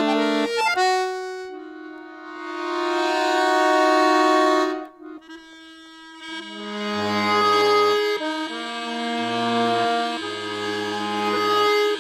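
Accordion playing sustained chords. A held chord swells up and is cut off sharply about five seconds in. In the second half, chords are played with short low bass notes under them.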